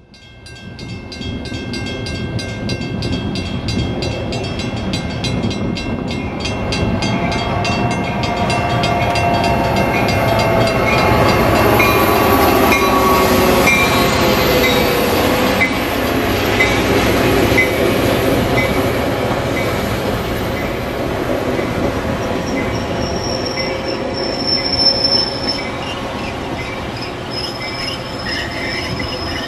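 Metra bi-level commuter train rolling past at close range, its wheels rumbling on the rails with a fast, even ticking in the first several seconds. Wheels squeal in wavering tones through the middle, and a thin high whine comes in near the end as the train runs on.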